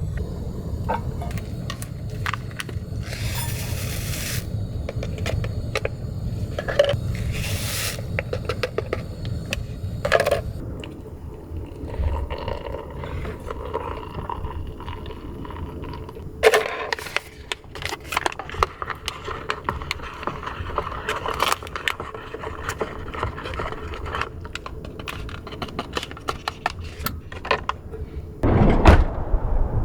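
Scattered clicks, clinks and scrapes of small objects being handled, over a low rumble that eases after about ten seconds. There is a louder knock near the end.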